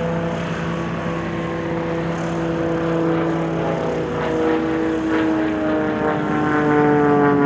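Aircraft engine running, its steady tones slowly dropping in pitch while it grows louder toward the end.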